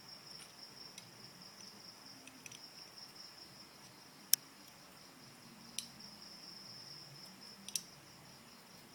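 Steady high-pitched cricket trill in the background, with a few sharp clicks: the loudest about four seconds in, and two close together near the end.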